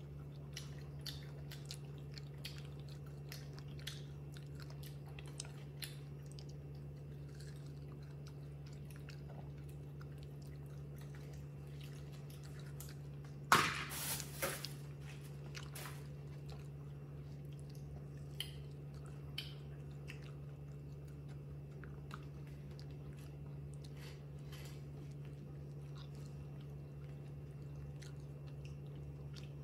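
Small crisp clicks and crunches of a baby monkey picking at and chewing fried food at a table, over a steady low hum. About halfway through comes one louder crunching clatter lasting about a second.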